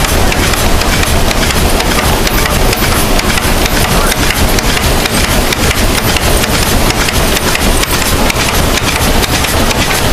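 Water-powered sawmill machinery running beneath the mill floor: a really noisy, steady clatter of rapid wooden and metal knocks over a rushing, rain-like noise.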